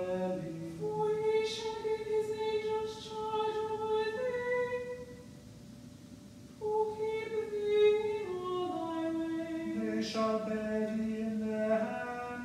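Psalm verses chanted unaccompanied by cantors, a higher voice singing held notes that step up and down, with a short break about halfway and a lower man's voice joining about ten seconds in.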